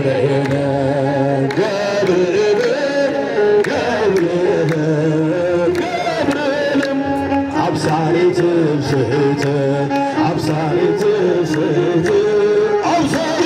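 An Ethiopian Orthodox Tewahido hymn (mezmur) sung: a voice carrying a wavering, ornamented melody over sustained low accompaniment, with a steady beat.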